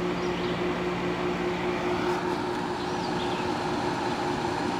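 General Electric 50-pint dehumidifier (ADEL50LRL2) running with its fan blowing: a steady whoosh of air with a low, even hum.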